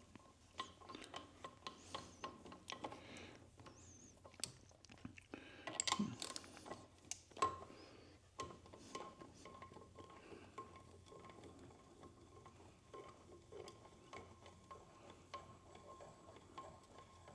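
Hand ratchet clicking in short, irregular runs with small metal clinks as a cylinder head bolt is worked loose on a Suzuki DR-Z400 engine.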